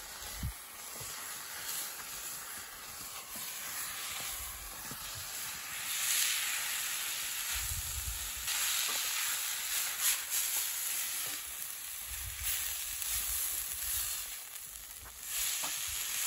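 Parboiled rice and ground meat sizzling in a frying pan over a wood campfire, with a wooden spatula stirring and scraping through it.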